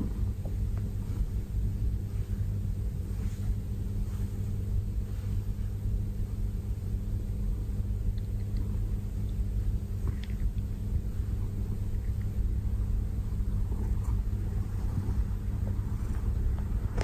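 Domestic cat purring steadily while being stroked: a continuous low rumble with a fast flutter.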